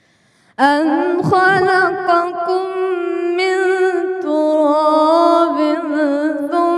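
Male reciter chanting the Quran in melodic tajweed style. After a half-second pause for breath, he sustains long, ornamented notes with a wavering pitch.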